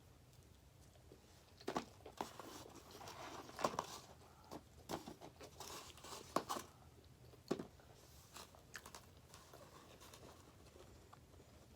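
Someone eating pizza: bites and chewing with crisp crunches from the crust and sharp mouth clicks, most frequent in the first half and thinning out near the end.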